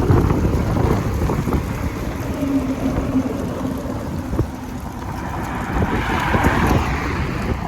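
Strong gusty wind buffeting the microphone, a heavy low rumble throughout.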